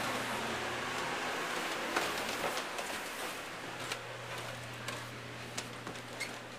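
Steady rushing air and low hum of the heaters and fans used for a bed bug heat treatment, fading somewhat about halfway through, with a few light knocks of footsteps and handling.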